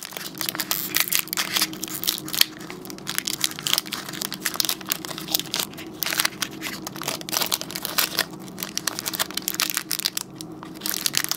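Foil wrapper of a Pokémon trading-card booster pack crinkling and crackling in irregular bursts as it is crumpled and worked open by hand.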